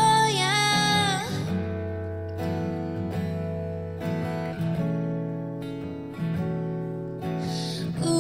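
A female voice holds out the end of a sung line, then acoustic guitar strums chords alone through an instrumental break of about six seconds, until the singing comes back in near the end.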